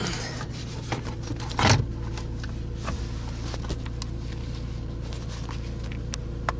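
Handling noise as a car radio head unit is pulled out of the dashboard and its wiring moved. Scattered light clicks and scrapes, with a louder knock about a second and a half in, over a steady low hum.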